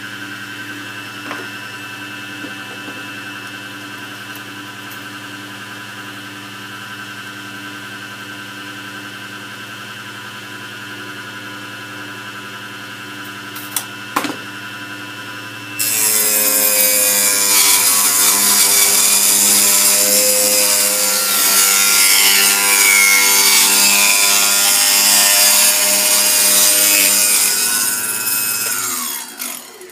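Small benchtop table saw running with a steady whine; about halfway through, the blade starts cutting a thin plywood sheet fed on a crosscut sled, and the cut stays loud until near the end. The saw is then switched off and winds down, its pitch falling.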